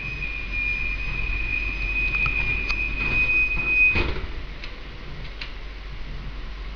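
KT8D5N tram's door-closing warning: a steady high beep that ends about four seconds in with a knock as the doors shut, followed by a few faint clicks.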